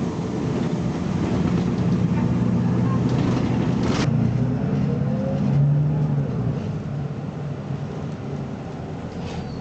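BMC Belde 220-SLF city bus engine running under load, pulling strongly and then easing off after about six seconds. A sharp click comes about four seconds in.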